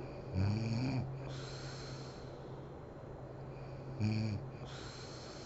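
A sleeping woman snoring: two loud snores about three and a half seconds apart, the first rising in pitch, over a steady low hum.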